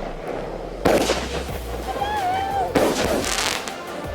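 Pyro King 'Armored' 16-shot mini firework cake firing: two loud shots about two seconds apart, one about a second in and one near three seconds, each with a short tail.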